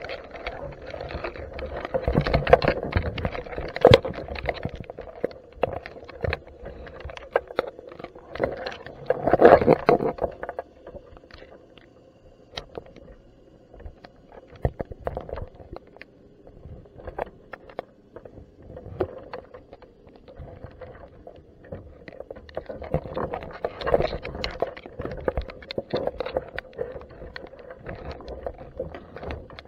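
Underwater sound picked up by a camera inside a crab pot resting on the sea floor. A steady low hum runs under a stream of clicks and knocks, with louder bouts of rushing water and knocking about two, nine and twenty-four seconds in.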